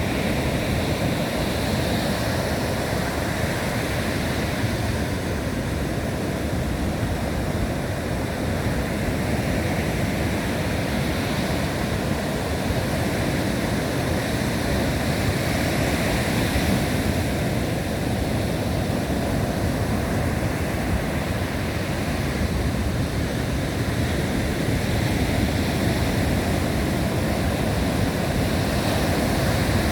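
Big Atlantic waves breaking in continuous surf, swelling and easing every few seconds, with high wind blowing.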